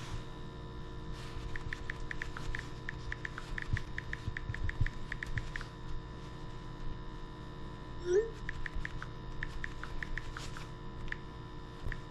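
A steady low hum from the running boiler equipment, with two spells of quick, light ticking, several ticks a second, the first in the first half and the second after a short pause.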